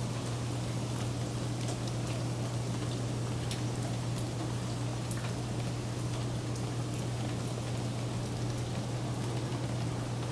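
Rain falling steadily, with scattered sharp drop ticks, over a steady low hum.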